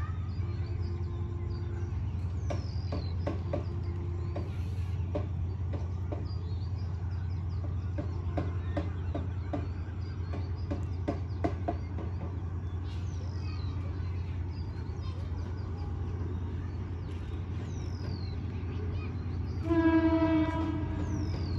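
Train approaching out of sight: a steady low rumble, two faint one-second horn notes in the first few seconds, then near the end a loud horn blast lasting about a second.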